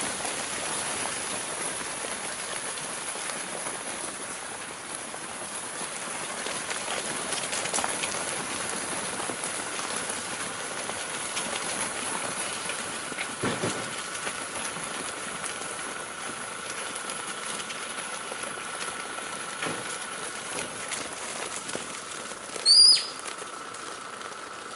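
Flock of sheep trotting along a gravel lane, their many hooves scuffing and clattering on the gravel in a steady, irregular rustle. Near the end comes one short, loud, high whistle.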